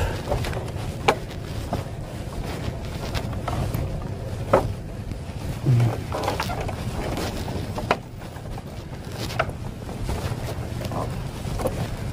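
A steady low engine drone, with several sharp knocks and clicks scattered through it.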